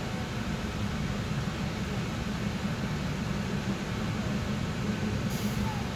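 Steady low drone of a Mitsubishi Fuso Rosa minibus's diesel engine and road noise heard inside the passenger cabin while the bus is under way, with a brief hiss about five seconds in.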